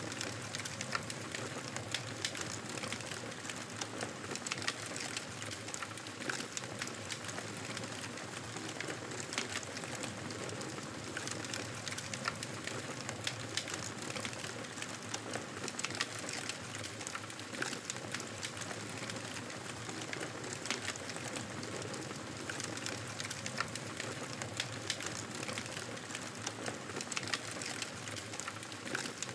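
Campfire burning: a steady hiss under many small, sharp crackles and pops from the burning wood.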